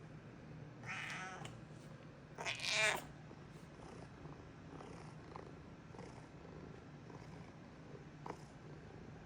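Domestic cat meowing twice: a shorter call about a second in, then a louder, longer one near three seconds that drops in pitch at its end, over a steady low hum.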